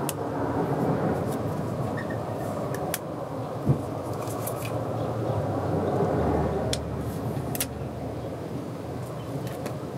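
Steady low background rumble, with a few light clicks from handling and a single sharp thump a little under four seconds in.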